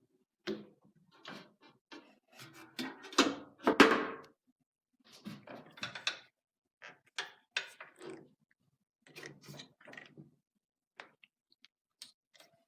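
Hard mechanical parts being handled: a run of irregular clicks, knocks and rattles, with the loudest knocks about three to four seconds in.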